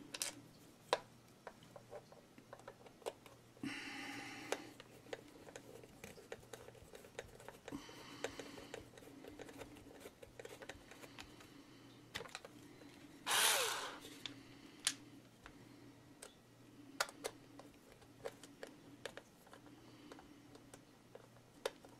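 Small screwdriver and screws clicking and tapping against an electric corkscrew's plastic housing as the screws are driven back in by hand. A brief scrape comes about 4 s in and a louder one about halfway through, over a faint steady hum.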